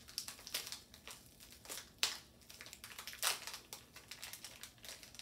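Plastic snack wrapper crinkling and crackling as hands work it open, with a sharper crackle about two seconds in and another a little after three seconds.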